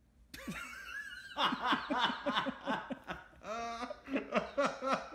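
A person laughing hard in a rapid string of short bursts, opened by a high wavering squeal.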